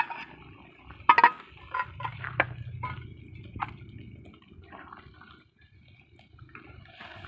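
A spatula scraping in a wok of cooked mushrooms and their juice, with wet squelching and dripping as the mushrooms are scooped onto an enamel plate. A few sharp clicks of the spatula against the wok and plate stand out, the loudest a little over a second in.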